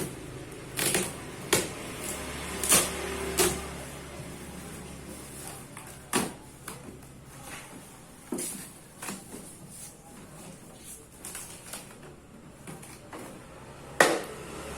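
Irregular knocks, clacks and rustles of a parcel being unpacked and the packaging and jars being handled. The sharpest knock comes near the end.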